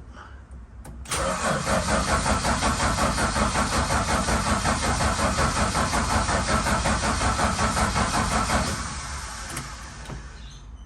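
Valiant VH Charger's engine being cranked by the starter motor for about seven and a half seconds, an even rapid chugging that starts suddenly about a second in and dies away near the end without the engine catching. It will not fire because it is starved of fuel: the tank had run dry.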